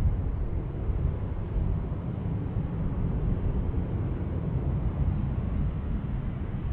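Airbus A350-900's Rolls-Royce Trent XWB turbofans running at low taxi thrust as the airliner rolls slowly: a steady low rumble with a hiss above it and no distinct tones.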